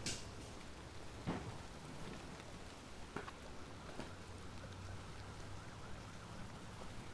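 Light rain falling, a steady soft hiss with a few irregular, sharper drop taps.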